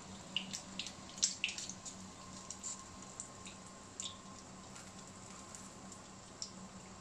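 Faint clicks and rustles as a baked pizza empanada is picked up off a paper-towel-lined plate and bitten into, thinning out to occasional soft mouth sounds while it is chewed. A low steady hum runs underneath.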